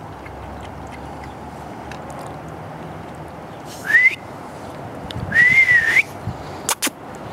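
A person whistling twice to call a dog: a short rising note, then a longer note that rises and falls. Two quick clicks follow near the end.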